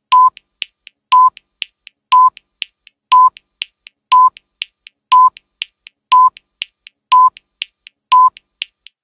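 Countdown timer sound effect: a short, high beep once a second, with three quieter ticks evenly spaced between each pair of beeps.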